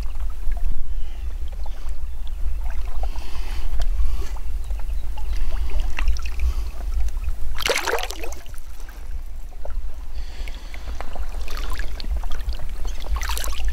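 Wind rumbling on the microphone over small waves lapping at a lake's edge. A louder burst of noise comes about eight seconds in and again near the end.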